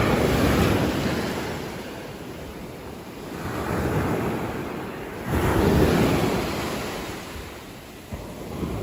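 A rushing noise that swells and fades about three times, like surf washing in.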